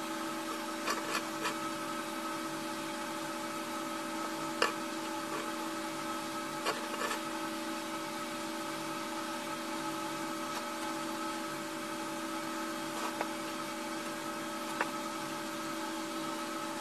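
Steady machine hum with several fixed pitches in the background. A few soft clicks and scrapes come from a stick spreading furnace cement on a steel knife blade, the sharpest click about four and a half seconds in.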